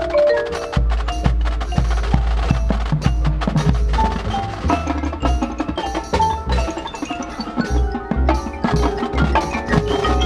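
Marching band percussion section playing: fast struck mallet notes from marimbas and glockenspiel together with drums, over a low bass line.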